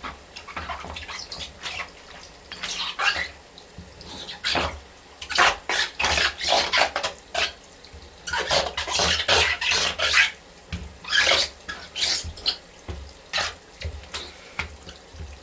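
Wet Fila Disruptor II Wedge sneakers squeaking over and over in quick irregular runs, busiest and loudest in the middle, with shower water running underneath.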